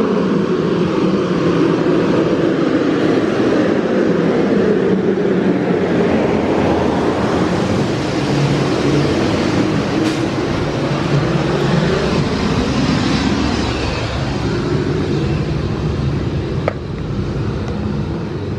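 A heavy vehicle passing close by: a loud, steady rumble that eases off near the end.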